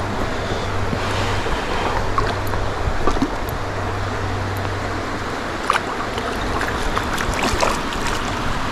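Flowing river water close to the microphone, a steady rushing hiss with wind buffeting the mic, a low hum for the first few seconds and a few faint clicks.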